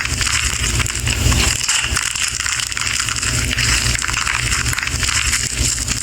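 Slime being squeezed and pressed by hand, giving a steady stream of small crackles and pops.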